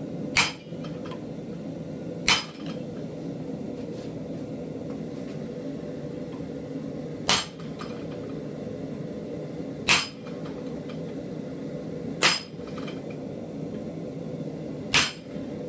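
Hammer striking a hand-held cutter chisel into a steel animal head held in a vise, carving nostril detail: six sharp metallic blows spaced irregularly, one to five seconds apart. A steady low hum runs underneath.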